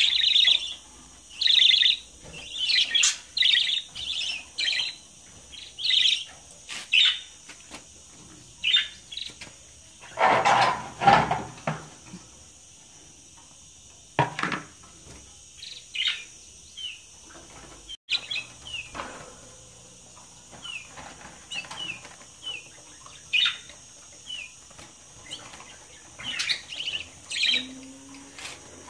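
Pet budgerigars chirping and chattering in short, quick high calls throughout, with one louder, longer stretch about ten seconds in.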